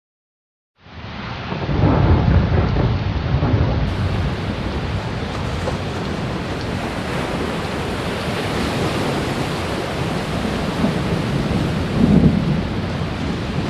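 Loud, continuous storm noise of heavy rain and wind, beginning about a second in, with deep rumbles swelling about two seconds in and again near the end.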